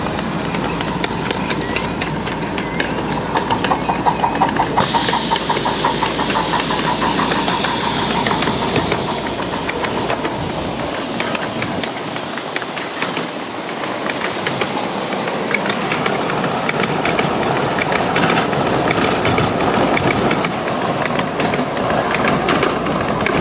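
A 1.5-scale live-steam Little Engines ALCO Northern running past with its train of riding cars. Its steam hisses, with a loud burst of hiss starting suddenly about five seconds in, and the wheels click steadily over the rails as the cars roll by.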